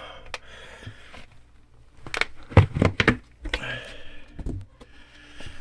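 Handling noises as a bucket of firework shells is moved and sorted through: a few sharp knocks about two to three seconds in, and rustling.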